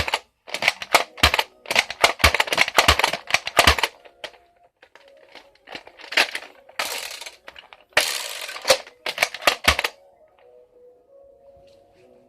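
Hard plastic clicking and clacking of a Nerf Strongarm blaster being handled and worked, a quick run of clicks in the first few seconds and then a few longer rattling rushes, over faint background music.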